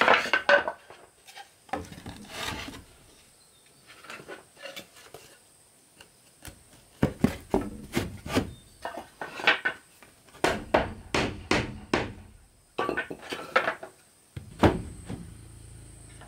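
Wooden boards knocking and clattering as they are handled, in irregular clusters of sharp knocks with short pauses between.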